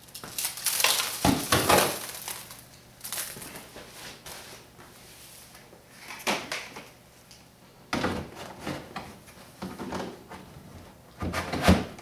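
Clunks and scrapes of a plastic garbage can being handled as a block of ice is put inside and a fan is set on its top. It comes in several separate bursts, the loudest near the end.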